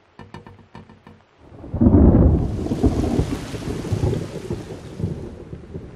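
A few short plucked notes of music, then about two seconds in a loud thunderclap breaks and rolls, fading over the next few seconds under a hiss of rain.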